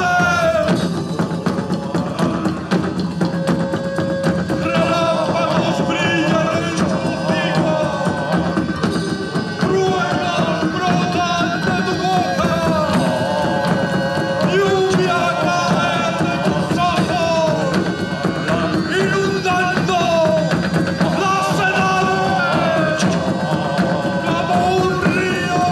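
Live folk music played by a band: a gliding melody over a steady, dense accompaniment.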